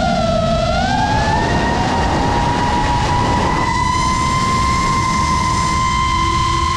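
FPV quadcopter's brushless motors and propellers whining. The pitch dips in the first second, then climbs and holds steady as the throttle changes, over a steady rushing noise.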